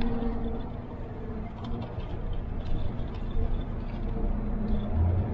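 City bus driving, heard from inside the passenger cabin: a steady low engine and road rumble with a hum that drifts up and down in pitch.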